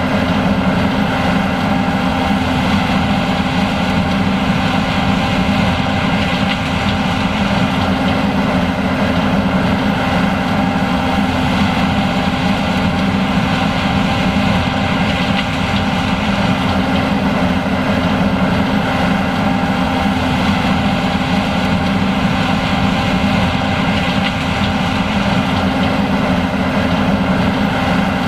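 John Deere S780 combine running steadily while harvesting corn: a constant deep engine drone with a few steady whining tones from its machinery.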